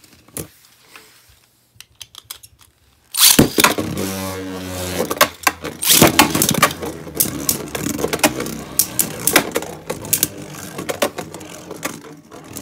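Beyblade spinning tops in a plastic stadium. A few faint ticks, then a sudden loud launch about three seconds in with a whirring spin. After that, rapid clicking and rattling as the tops knock against each other and the stadium wall.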